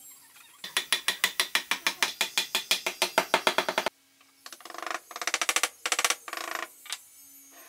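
Rapid ratchet-like clicking, about eight clicks a second, that stops abruptly after about three seconds, then comes back in several shorter bursts.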